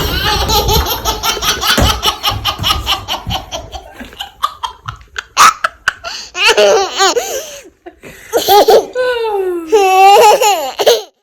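Baby girl laughing: a long run of rapid, evenly pulsed giggles, then high squealing belly laughs in runs with pauses between.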